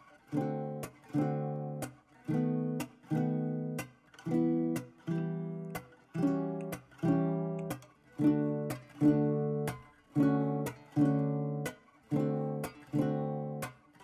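Background music: a guitar strumming chords in a steady rhythm, a little more than one chord a second, each chord dying away and stopping short before the next.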